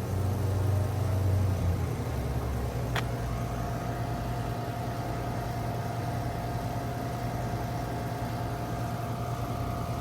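A 2.5-ton American Standard central air conditioner's outdoor unit starting up. A low hum changes about two seconds in, then comes a sharp click about three seconds in, followed by a steady whine as the unit runs.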